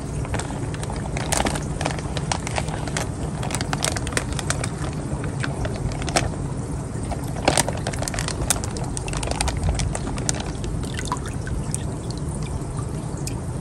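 Water pouring and splashing out of a tipped plastic fish bag into an enamel basin as goldfish are released, with many short splashes and crackles of the bag. A steady low hum runs underneath.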